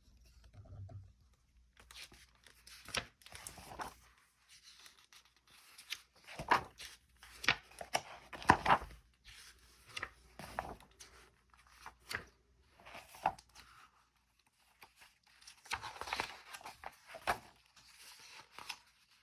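Pages of a hardcover picture book being turned one after another, each turn a short paper rustle and swish, at an irregular pace with a brief pause partway through.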